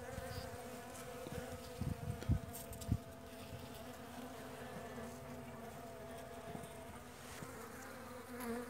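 Honeybees humming in an open hive, a steady drone. A few low thumps come about two to three seconds in.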